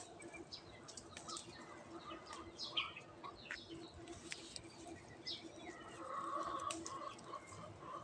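Small birds chirping in many short, quick downward calls over a steady low hum. From about six seconds in, a chicken clucks.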